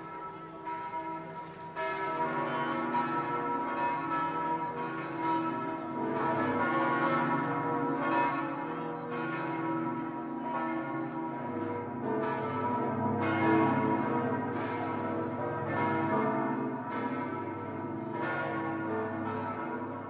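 Church bells of St Mark's in Venice ringing together in a dense peal of overlapping strikes. The peal fills out about two seconds in, and a deeper bell joins about halfway through.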